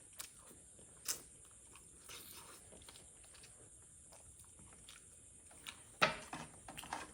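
Close-miked chewing and biting on chicken, with small wet mouth clicks. There is a sharper bite about a second in and a louder crunch about six seconds in.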